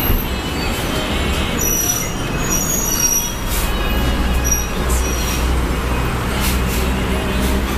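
Road traffic: a heavy vehicle rumbling past, loudest in the middle, with a few short high-pitched squeals.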